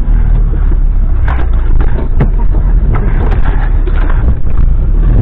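Off-road vehicle's engine running inside the cab, a steady low drone, with irregular knocks and rattles as the vehicle jolts over rough ground.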